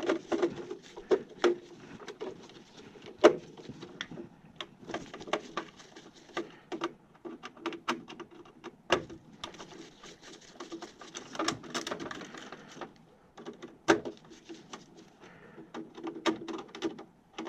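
Irregular clicks, taps and small knocks of hand tools and parts being handled during work inside a gas furnace cabinet.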